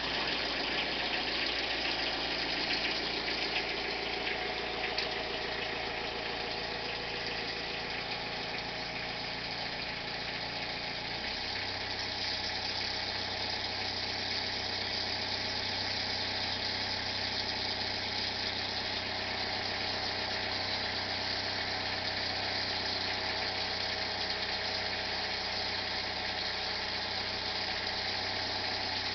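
37 hp Kubota engine of a poultry equipment washer running steadily just after starting. About eleven seconds in its note steps up and settles at a higher steady speed.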